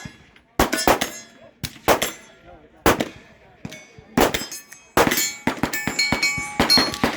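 Gunfire in irregular quick strings of shots, a few single shots early on and a faster run in the second half, with the metallic clang of bullets ringing steel targets.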